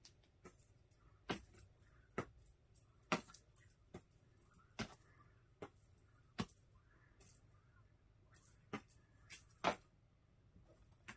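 Small bells jingling in irregular bursts, mixed with sharp clicks and knocks, as cats bat and tumble a toy. The loudest knocks come near the end, followed by a short pause before a last jingle.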